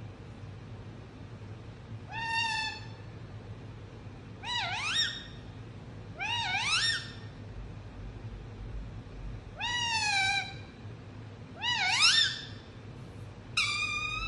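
Indian ringneck parakeet calling six times, a couple of seconds apart: drawn-out, meow-like calls, some sliding up in pitch and some falling away.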